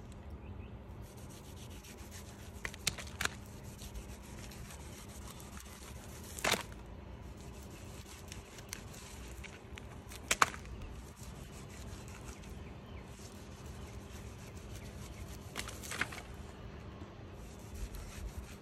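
A knife scraping and carving into a set plaster casting block, with a few sharp cracks as pieces break away, about three, six and a half, ten and a half and sixteen seconds in.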